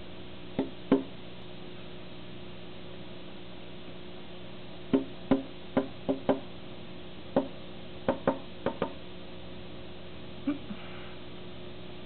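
A bird pecking and thumping at its own reflection in a window pane: sharp knocks on the glass in irregular groups of two to five, about a dozen in all.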